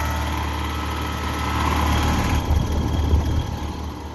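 Carrier Sentry heat pump outdoor unit running with a loud, steady low hum from its compressor, which the owner takes to be struggling and failing. A few louder bumps come about two-thirds of the way through.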